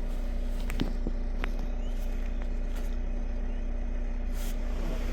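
Steady low engine hum, with a couple of faint clicks about one and one and a half seconds in.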